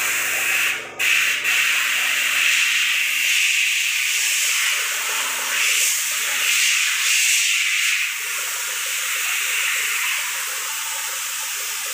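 Compressed-air paint spray gun with a top-mounted cup hissing steadily as it sprays paint along a wall, with a brief break about a second in.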